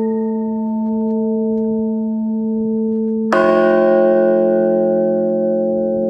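Large bronze Time and Tide Bell struck by hand with a mallet. An earlier strike is still ringing with a slow throb in its tone; a second, louder strike about three seconds in sets it ringing afresh, bright at first, then fading to a steady hum.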